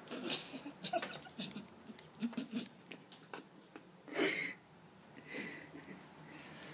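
Handling noise from a phone held while filming: scattered small clicks, knocks and rustles, with a loud breathy puff about four seconds in and a softer one a little after.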